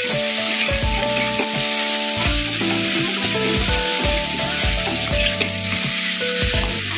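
Mixed vegetables and crab pieces sizzling in oil in a kadai, stirred and scraped with a flat metal spatula. Soft instrumental music plays underneath.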